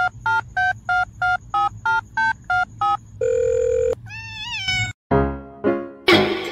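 Electronic phone-style ringing of short even beeps, about three a second, then one steady beep, then a short rising-and-falling cat meow. About five seconds in, piano notes start, each dying away.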